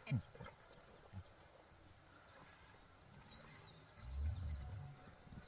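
Small birds chirping steadily in the background, with a short low voice murmuring about four seconds in.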